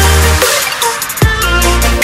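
Background electronic dance music with a heavy bass line and drum hits; the bass drops out for under a second about half a second in, then comes back with a falling bass swoop.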